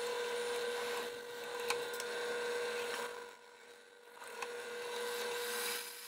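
Wen benchtop drill press running with a steady hum as a 3/16-inch bit drills a pinhole through a knife's handle block and into its steel tang. The sound drops for about a second a little past three seconds in, then comes back.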